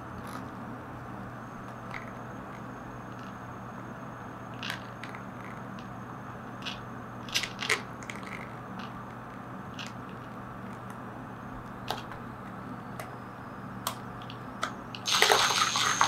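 Micro-scale RC rock crawler with a brushless motor crawling slowly over rocks: a faint steady drivetrain hum, with scattered sharp clicks and knocks of tyres and chassis on the rocks. A louder burst of rough noise starts about a second before the end.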